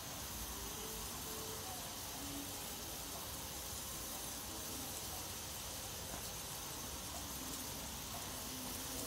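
Skewered marinated prawns sizzling in a shallow layer of hot mustard oil in a frying pan, a steady soft hiss as the frying starts.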